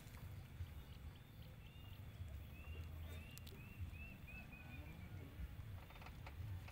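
A bird calling a quick run of about eight short chirps, slightly falling in pitch, about two and a half seconds in. It is faint over a low wind rumble.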